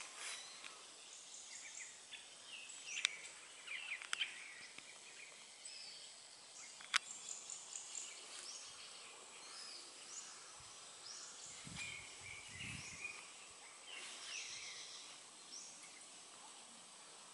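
Birds chirping and calling in leafy tropical vegetation over a faint, steady, high-pitched insect-like hum. There are a few sharp clicks in the first half and some low thumps a little past the middle.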